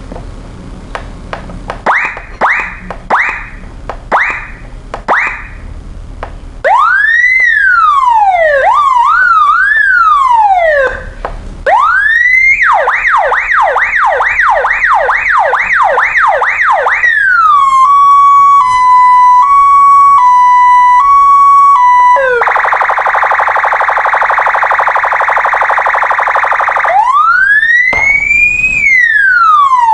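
Police car siren cycling through its tones: five short rising chirps, then slow rising-and-falling wails, a fast yelp at about two sweeps a second, a two-note hi-lo, a steady buzzing horn tone for about four seconds, and the wail again near the end.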